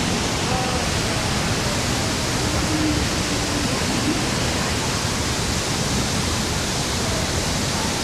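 Steady rush of a waterfall plunging into its pool and the river pouring out over rocks below it, an even, unbroken roar of water.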